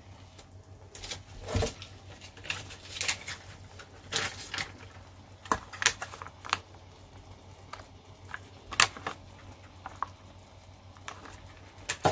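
Scattered light clicks and taps of kitchen handling: a plastic spatula knocking against a nonstick frying pan as cheese is pressed into cream sauce, and the plastic cheese packet being handled. A louder knock comes right at the end.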